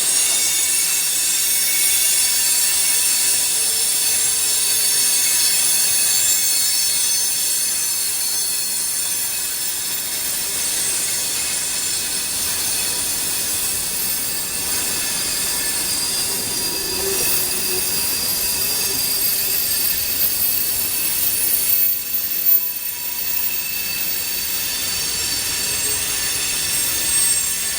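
Freight train rolling past with its wheels screeching against the rails: a continuous cluster of high-pitched squealing tones over steady rolling noise.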